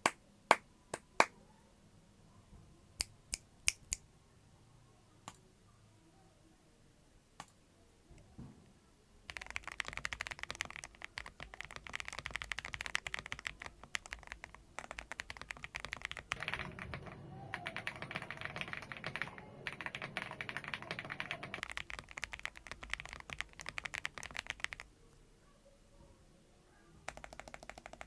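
Stock Noir Skyline mechanical keyboard: a few single key presses spaced apart, then about fifteen seconds of fast continuous typing that stops, with typing starting again near the end.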